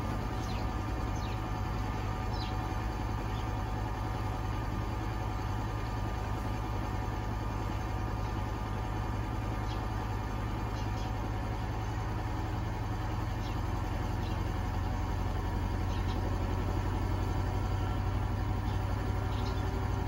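Beko WTK104121A washing machine running in its final spin stage: a steady low machine hum with a faint whine and a few light ticks, growing slightly louder over the last few seconds.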